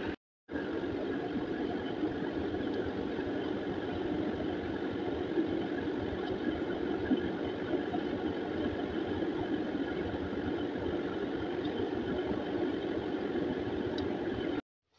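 Mathri deep-frying in a large iron kadhai of hot oil: a steady, loud sizzle of hard-bubbling oil over a steady mechanical hum. The sound breaks off briefly just after the start and again just before the end.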